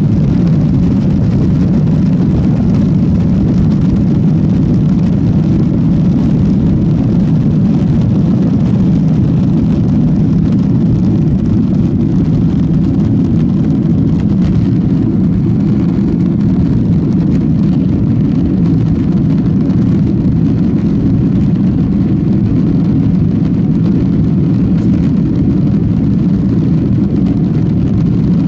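Steady, loud, low cabin noise inside a Boeing 737-800 climbing out after takeoff: its CFM56-7B turbofans at climb power together with airflow over the fuselage, even throughout.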